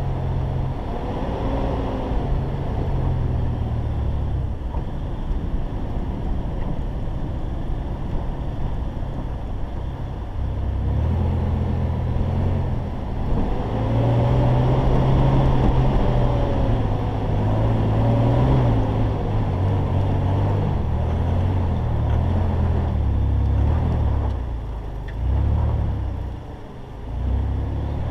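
Mitsubishi Pajero Evolution's engine pulling the truck over a dirt track, getting louder and working harder from about a third of the way in as it climbs, then easing off briefly near the end before picking up again.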